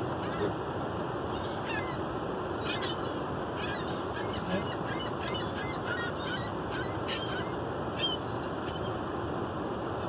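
Ring-billed gulls giving short, scattered calls, about six in all, over a steady hiss, heard from inside a car.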